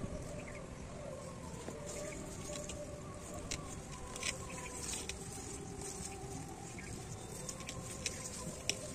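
Hands pressing and crumbling dry potting soil around strawberry plants and brushing their leaves: irregular light crackles and rustles.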